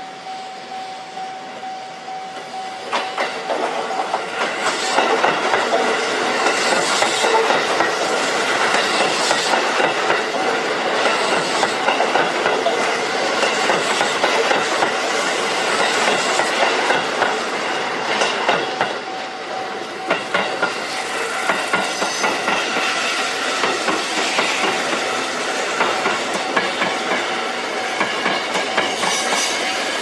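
Level crossing alarm ringing as a Sanyo Electric Railway 6000-series train passes over the crossing, wheels clacking over the rail joints, a few seconds in. Around two-thirds of the way through, a 5000-series train follows from the other direction with the same rumble and clacks.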